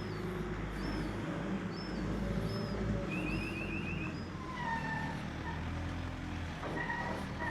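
A steady low engine hum with birds calling over it: a short chirp repeated about once a second, a quick trill of rapid notes about three seconds in, then whistled calls.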